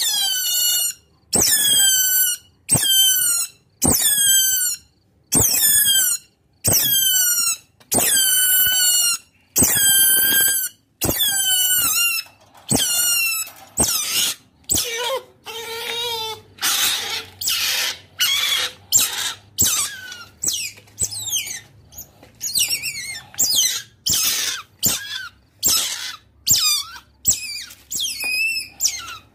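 Otter giving a long series of high-pitched squeaking calls, each a short note sliding down in pitch, about one a second. About halfway through comes a rougher, noisier stretch of a few seconds, then quicker, shorter squeaks follow.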